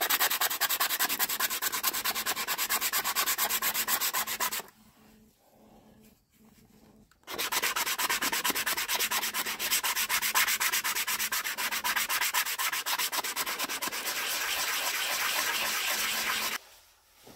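Sanding on the oak shepherd's crook and hazel shaft: a rasping with a fast, even pulse, in two long spells. It stops for about two and a half seconds a little under five seconds in.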